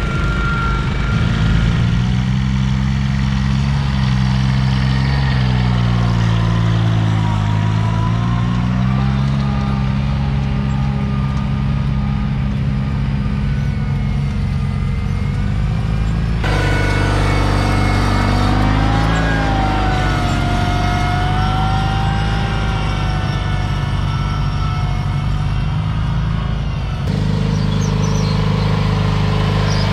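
Small garden tractor engines running steadily under load as the tractors pull plows through the soil. The engine note rises and falls slowly, a wavering higher whine rides over it, and the sound changes abruptly twice as it switches from one tractor to another.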